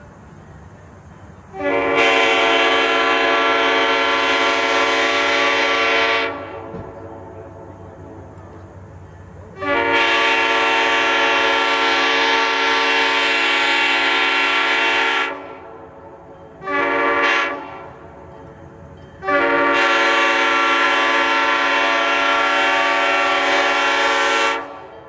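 Multi-chime locomotive air horn sounding the grade-crossing signal: two long blasts, a short one, then a final long blast, each holding a steady chord.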